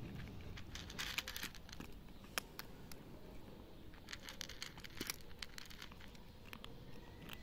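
Cats crunching dry kibble from a plastic plate: faint, irregular crunches and clicks, thickest about a second in and again around four to five seconds in.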